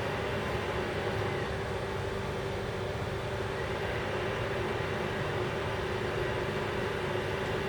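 A machine running steadily: an even rushing noise with a constant low hum, no change in pitch or level.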